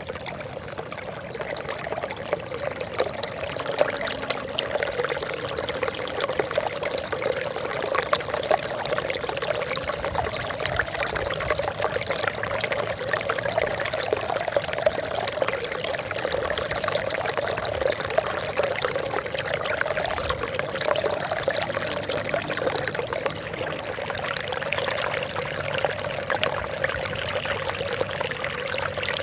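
Water trickling and splashing steadily into water, with a constant patter of small droplet sounds and no break.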